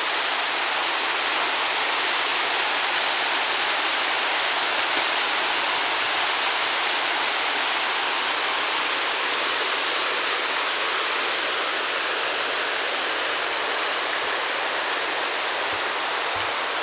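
Small waterfall cascading steadily over rock into a pool: a constant, even rush of falling water.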